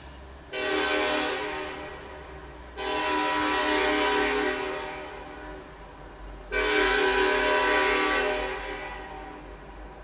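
BNSF SD70ACe diesel locomotive's air horn sounding three loud blasts for a grade crossing, each a steady multi-note tone that starts abruptly and fades away over a couple of seconds.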